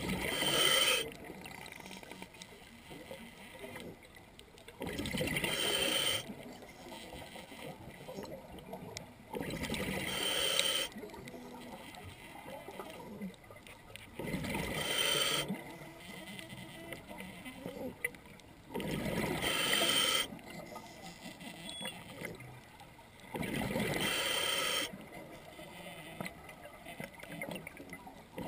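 Scuba diver breathing underwater through an open-circuit regulator: a rush of exhaled bubbles about every four and a half seconds, each lasting a second or so, with quieter inhalations between.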